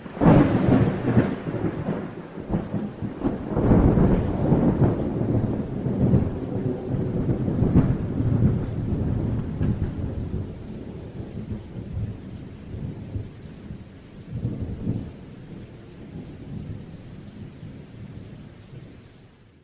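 Thunderstorm: rumbling thunder over steady rain, starting abruptly, loudest in the first half and fading out near the end.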